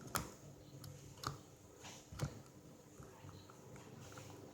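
Slime being handled and squished in the hands: a few faint sticky clicks and pops, about one a second.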